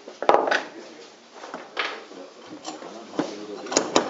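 Hand-loading clatter of a model cannon: a sharp metal-and-wood knock shortly after the start, with a brief rattle after it, then a few lighter clicks and knocks as the rod is worked in the barrel.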